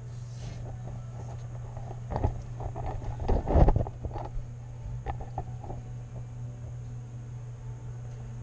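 Steady low hum, with a couple of seconds of rustling and clicking handling noise starting about two seconds in, loudest about a second and a half later, then a few lighter clicks.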